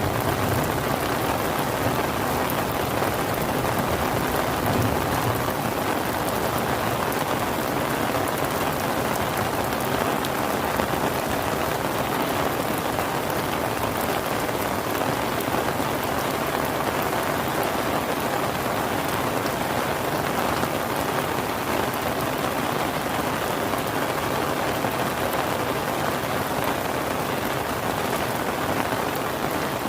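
Steady rain falling, an even hiss of drops on surfaces. A low rumble dies away in the first few seconds.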